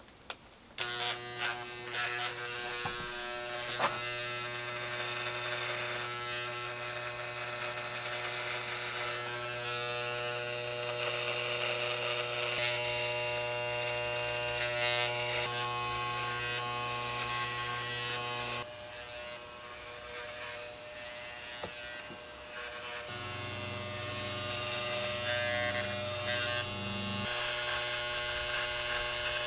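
Electric shaver switched on about a second in, buzzing steadily as it cuts through a beard. The buzz drops and changes pitch about two-thirds of the way through.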